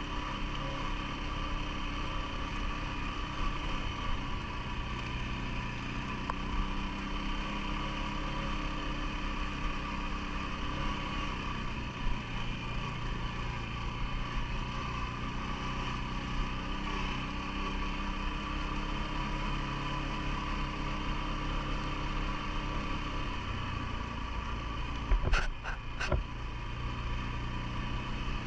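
CFMOTO ATV engine running steadily at low, even revs. Near the end a few sharp knocks stand out above it.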